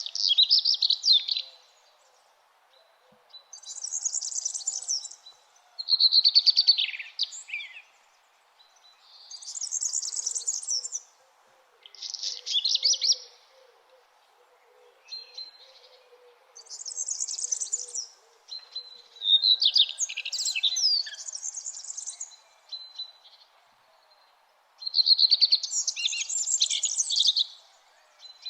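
Songbirds singing: about ten high-pitched phrases of chirps and trills, each lasting a second or two, with short pauses between. Some phrases sit higher and buzzier and others lower, over a faint steady background hiss.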